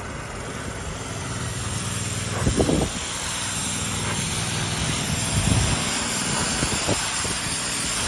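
A small-engine pressure washer runs steadily while its wand's water jet hisses against a log's bark, swelling louder a few times as the spray moves.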